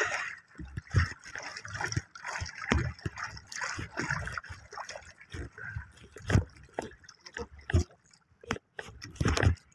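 Sea water sloshing and slapping against the sides of a small wooden outrigger canoe, with irregular short knocks and splashes.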